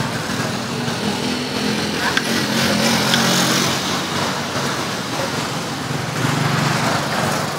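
Street traffic: small motorbike engines running past, with voices in the background.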